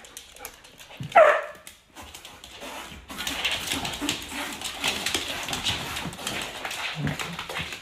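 A dog gives one short, loud call that falls in pitch about a second in. From about three seconds on comes steady rough rustling and scuffling as two dogs tussle, with low grunts near the end.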